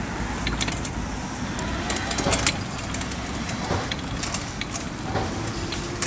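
A 60 V electric ATV with two 1500 W brushless hub motors driving over grass: a steady low noise from the running quad, with scattered clicks and rattles from the machine and no engine sound.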